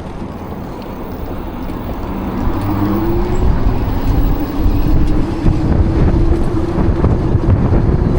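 Wind and road noise of a ride on an e-bike, growing louder a few seconds in, with a motor hum that rises in pitch and then holds steady.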